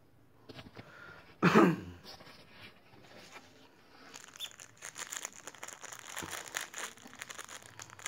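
Plastic bags crinkling and rustling as the ingredients in them are handled, a dense crackle from about four seconds in. About a second and a half in there is one short, loud sound that falls in pitch.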